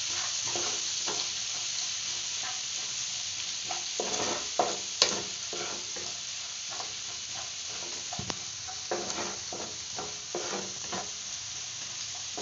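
Minced garlic sizzling in butter and oil in a nonstick frying pan on a low flame, stirred and scraped with a wooden spatula in irregular strokes. There is one sharp tap about five seconds in.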